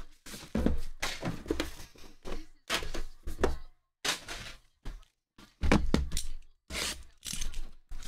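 Sealed, shrink-wrapped cardboard trading-card boxes being handled and set down on a table: a run of short thunks and knocks with brief pauses between them.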